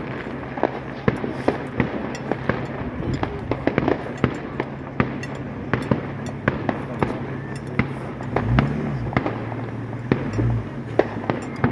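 Fireworks going off: many sharp bangs and crackles in an irregular stream over a continuous rumble of more distant bursts, with a louder low boom about eight seconds in.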